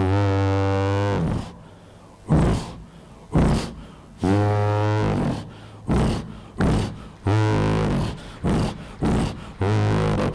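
A mimicry artist's voice imitating dinosaur calls: four long, low calls of about a second each, with short sharp vocal thumps between them.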